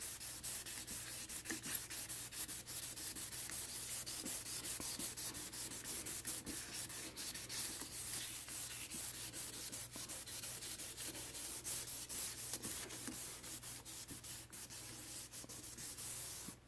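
1000-grit wet-sanding of a plastic headlight lens with soapy water, a continuous scratchy rasp in quick back-and-forth strokes that stops suddenly at the end. This is the step that refines the coarser 600-grit scratches after the yellowed, oxidized surface has been cut away.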